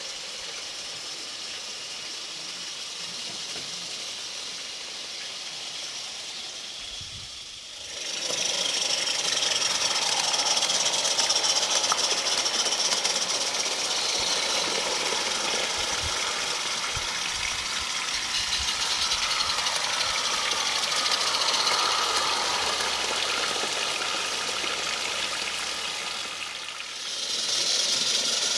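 Live-steam garden-scale locomotive running with its coaches on 45 mm gauge track: a steady hiss of steam with mechanical running noise. It becomes much louder about a third of the way in, dips briefly near the end, then comes back up.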